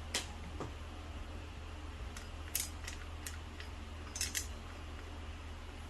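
A few light clinks and taps of a kitchen utensil against a small pot and bowl as food is lifted out, with a cluster of ticks about four seconds in, over a low steady hum.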